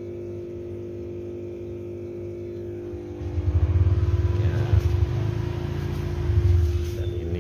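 A steady hum made of several tones throughout. About three seconds in, loud irregular low rumbling starts: handling noise on the phone's microphone as it is swung around.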